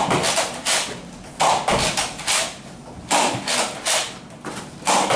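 Nerf Rival Artemis pump-action blaster pumped and fired over and over, with foam balls hitting and bouncing: clusters of sharp clacks and thuds about every second and a half.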